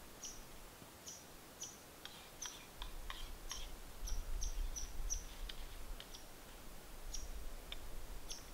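A red squirrel giving short, high chirps, about two a second, that it keeps up as it begs for food. About halfway through there is a low rumble under the chirps.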